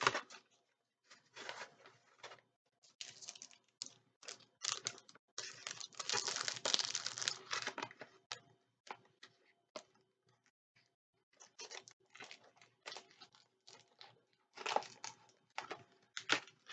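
Packaging being handled: irregular rustling and crinkling, with a longer stretch of crinkling about six seconds in and a few sharper rustles near the end.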